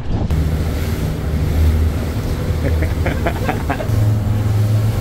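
Outboard-powered boat running at speed: a steady engine drone under the rush of wind and water, the engine note stepping up slightly near the end.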